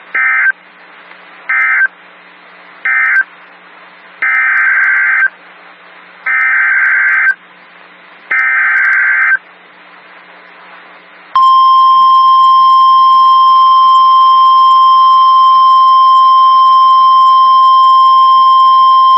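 Emergency Alert System / NOAA Weather Radio SAME data tones: three short screeching digital bursts, the end-of-message code, then three longer bursts about a second each, the header of the next warning. These are followed by the steady, loud single-pitch weather radio warning alarm tone, held for about nine seconds, which announces a new warning.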